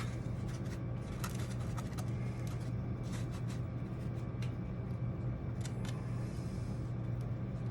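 Steady low background hum with scattered faint clicks and light scratching from a razor blade cutting a channel into foam board.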